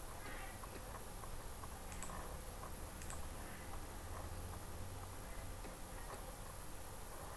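Quiet room tone: a steady faint hiss and low hum, with a couple of faint clicks about two and three seconds in.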